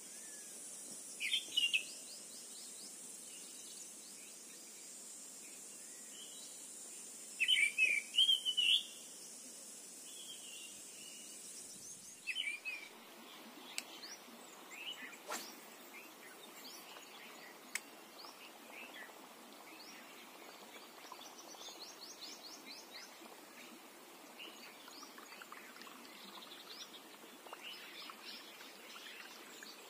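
Birds calling in short bursts of chirps over a steady high insect drone; the drone cuts off suddenly about twelve seconds in, after which scattered chirps and a couple of sharp clicks continue over quiet background noise.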